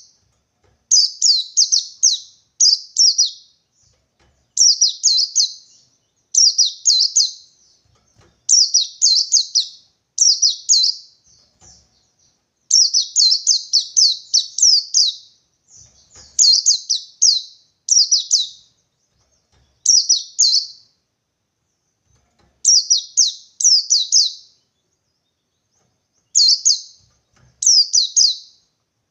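White-eye (pleci) singing in the wild 'ngalas' style: short phrases of two to four quick, high, downslurred chirps, repeated every second or two with brief pauses between them.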